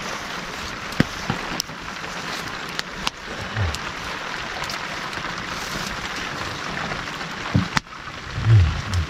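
Steady rain falling, with scattered sharp clicks of drips and a few low thumps, the loudest near the end.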